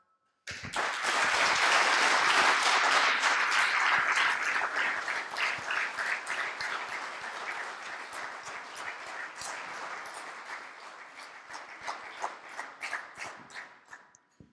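Audience applauding. It starts suddenly, is fullest in the first few seconds, then gradually thins out to scattered claps near the end.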